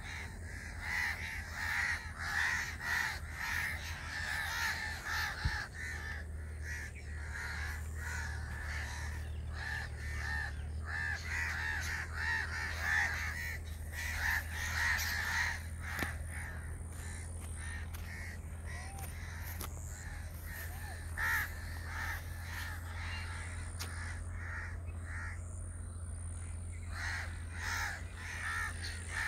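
Crows cawing over and over, several calls overlapping in dense clusters, with a quieter lull past the middle. A steady low rumble runs underneath.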